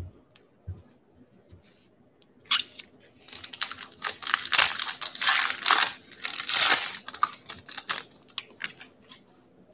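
Foil wrapper of a baseball card pack torn open and crinkled by hand, with loud, irregular crinkling from about two and a half seconds in until near the end, after a few light taps.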